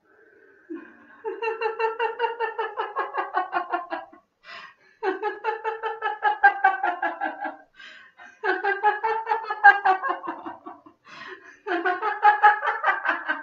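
A woman laughing aloud in four long bouts of rapid 'ha-ha-ha' pulses, each on one out-breath, with short breaths drawn in between. It is deliberate laughter-yoga 'namaste laughter'.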